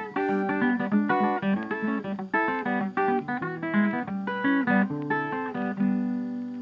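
Background music: a plucked guitar tune of quick notes, settling about six seconds in onto a held chord that slowly fades.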